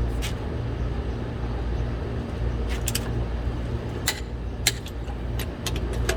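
Scattered sharp clicks and knocks of a hand wrench on a lug nut as it is tightened back to specification, over a steady low rumble.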